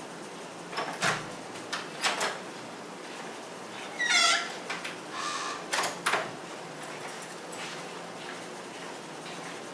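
Colouring pencil strokes scratching on paper in short, irregular bursts, with a louder squeaky stroke about four seconds in. Quieter from about seven seconds on.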